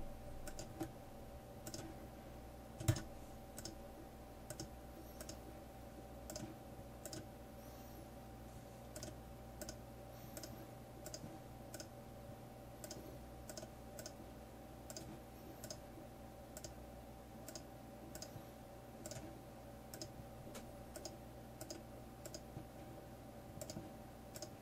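Faint computer mouse clicks, irregular, about one or two a second, over a steady electrical hum; one louder click about three seconds in.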